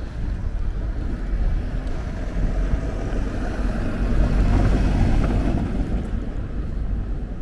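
Wind buffeting the microphone in a rumble, with a vehicle passing on the street that rises to a peak around the middle and fades away.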